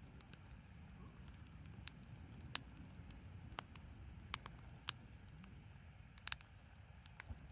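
Small wood fire in a compact folding fire grill, its burning wood crackling with irregular sharp pops over a low steady rumble of flame.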